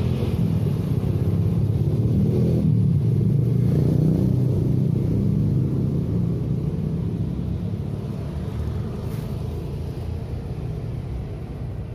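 A low engine rumble that swells to its loudest a few seconds in and then slowly fades away, as of an engine passing by.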